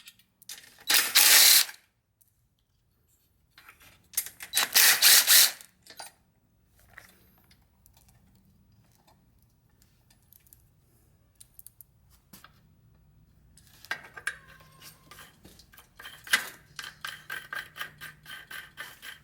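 Two bursts of about a second each from a power tool undoing the clip-on handlebar bolts on a motorcycle, then small metal clicks, and near the end a quick run of ratchet clicks as a hand ratchet turns out a fastener.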